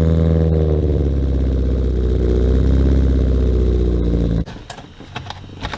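A car engine running steadily, which cuts off abruptly about four and a half seconds in, leaving a few light metallic clicks and clinks.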